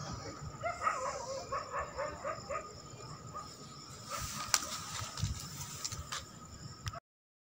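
A quick run of about nine short animal calls, roughly four a second, over about two seconds, then a few quiet clicks.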